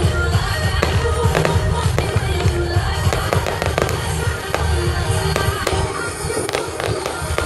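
Aerial fireworks shells bursting and crackling in a rapid, irregular string of sharp bangs over a low rumble, with music playing underneath.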